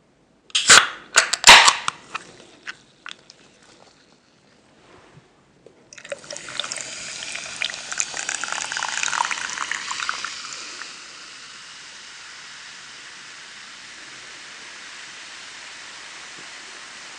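A few sharp knocks of cookware, then food sizzling in a hot pan: a crackling burst about six seconds in that settles into a steady hiss.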